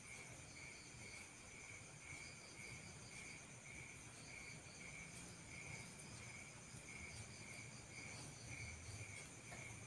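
Faint insect chorus: a cricket chirping in an even rhythm about twice a second, over a thin, steady high-pitched trill.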